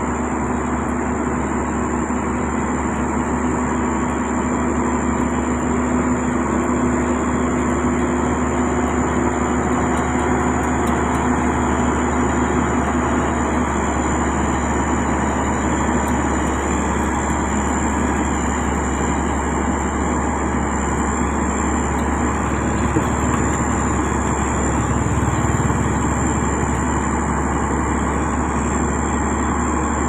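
Diesel engines of heavy road-building machinery running steadily, with a low engine hum that fades about halfway through and a steady thin high whine.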